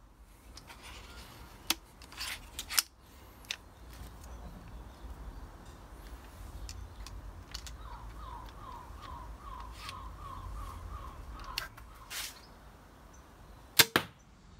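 A pistol crossbow being readied, with a few sharp mechanical clicks in the first few seconds. Near the end it is fired, giving two sharp snaps a fraction of a second apart.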